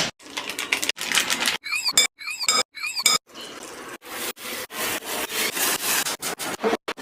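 Kitchen prep sounds in short abrupt cuts: utensils scraping and knocking against cookware and a board.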